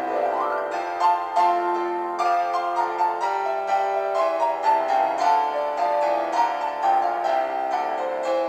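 Instrumental background music played on a keyboard: a melody of ringing notes, several a second, over held chords.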